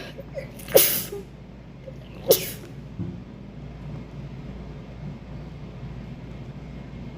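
A woman sneezing twice, about a second and a half apart: two short, sharp sneezes that are part of a bout of induced sneezing.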